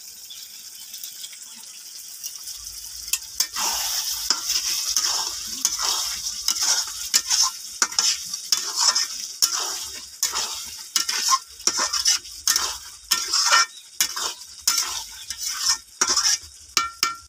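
Chicken and masala sizzling in a metal karahi while a metal spatula stirs and scrapes the pan. A quieter sizzle at first, then from about three and a half seconds in a scrape every second or so over the frying. This is the kosha stage, the meat's released water almost cooked off.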